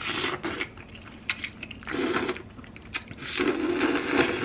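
A person slurping pasta noodles off a fork and chewing, in three short noisy bursts: one at the start, one about two seconds in, and a longer one near the end.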